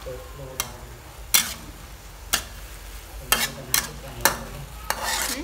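Metal spatula scraping and clacking against a metal wok as sliced beef is stir-fried, with a low sizzle underneath. There are several sharp metal-on-metal clicks, then a longer scrape near the end.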